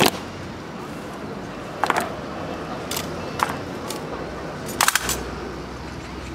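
Honor guards' rifle and marching drill: a series of sharp clacks from rifles being handled and boots striking the stone pavement. One comes at the start, a pair near two seconds in, two more around three seconds, and a quick cluster near five seconds, over a steady background hum.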